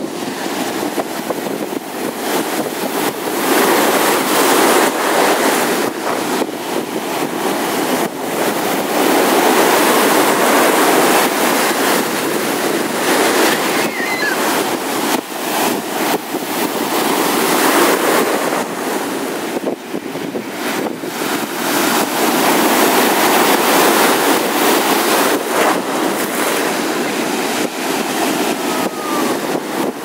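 Baltic Sea surf breaking and foaming in the shallows: a continuous rushing wash that swells louder as each wave comes in, every several seconds.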